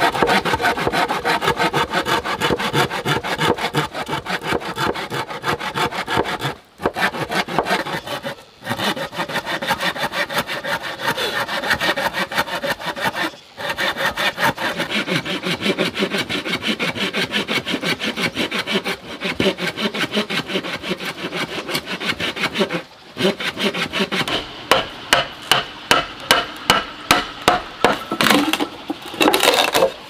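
Hand saw cutting through a thick green bamboo culm in rapid back-and-forth strokes, with a few short pauses. Near the end the strokes turn slower and more separate, about two or three a second.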